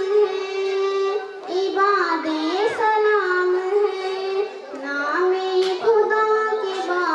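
A girl singing an Urdu naat into a hand-held microphone. She holds long sustained notes and slides through ornamented turns between them, with short breaks between phrases.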